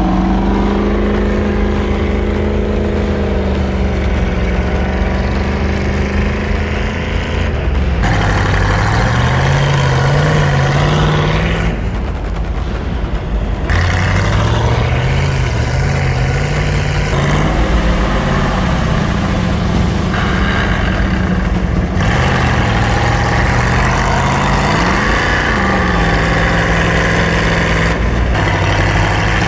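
Off-road vehicle engine running under load, its pitch rising and dropping back again and again as it revs through the gears. The sound changes abruptly several times.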